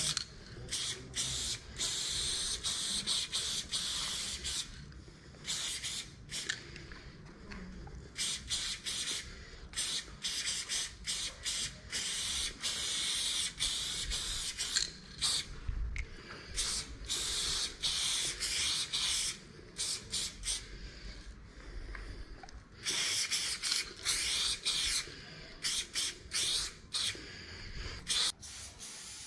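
Aerosol spray paint can hissing as paint is sprayed onto a wall, in repeated bursts: some held for two or three seconds, others short, with brief gaps between.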